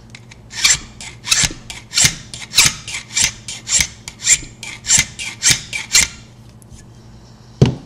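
Hand file rasping across the edge of a Slaymaker key blank clamped in vise grips, about a dozen even strokes, filing the key's edge to a knife blade for impressioning. The filing stops about six seconds in, and a single sharp click follows near the end.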